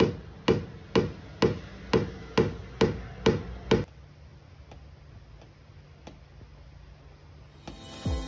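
Paintless dent repair knockdown hammer with a plastic tip tapping the car's sheet-metal roof edge: nine even taps about two a second, each ringing briefly. Then a quiet stretch with a few faint ticks, and music starts near the end.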